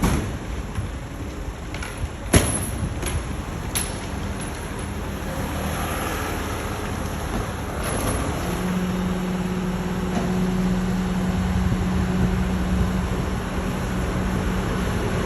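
Garbage truck engine running, with a sharp knock about two seconds in and a few lighter clicks after it; a steady low hum sets in about halfway through.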